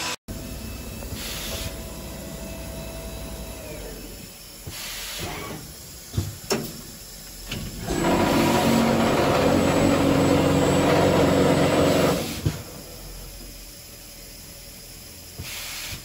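Through-feed panel drilling machine running, a steady mechanical hum with short hisses of air from its pneumatics and a few knocks. About halfway through it gets much louder for about four seconds, a dense rushing noise, then drops back to the hum.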